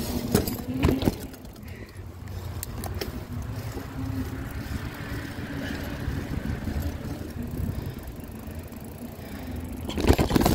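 Hard wheels rolling over skatepark concrete, a steady rumble, with a few sharp clacks about a second in and a loud clatter near the end.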